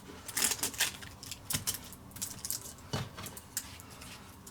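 Sticky tape and a thin plastic disc being pressed and worked onto a metal engine mount by hand: irregular light clicks and crackles, a little louder about half a second in and again about three seconds in.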